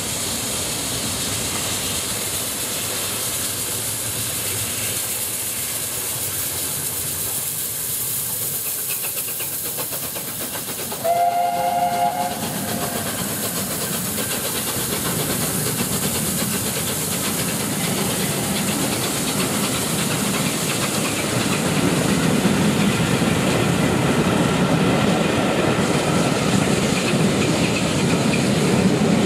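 LNER A4 Pacific steam locomotive 60019 'Bittern' running past with its train of coaches. It gives one short blast on its chime whistle about eleven seconds in. The wheels clatter over the rail joints, louder near the end as the coaches go by.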